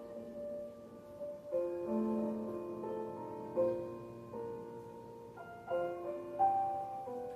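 Slow, gentle piano music: single notes and chords struck about once a second and left to ring out.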